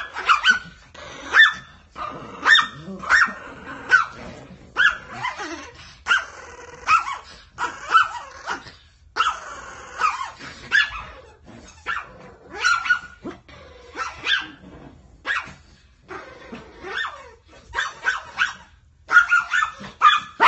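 A pug and a miniature pinscher barking and growling in short, sharp, repeated calls, about one or two a second, as they play-fight over a squeaky toy.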